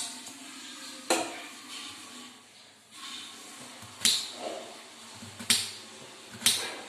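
Kitchen knife cutting a bitter gourd into round slices, each cut ending in a sharp knock of the blade on the hard counter: five knocks at uneven intervals, with a longer gap in the middle.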